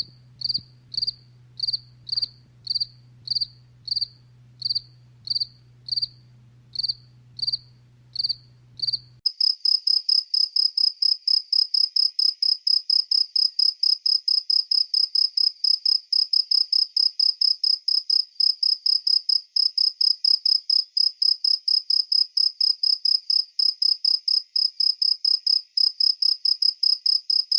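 Crickets chirping: first single high chirps at an even slow pace over a faint low hum, then about nine seconds in a different recording of faster, denser chirping, three to four pulses a second.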